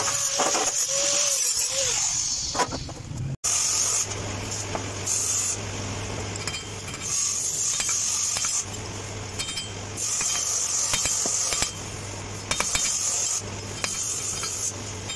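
Angle grinder running against sheet steel with a high hiss and a wavering whine. After a brief break, a sizzling hiss with a low electrical hum starts and stops every second or two, with light metal clinks.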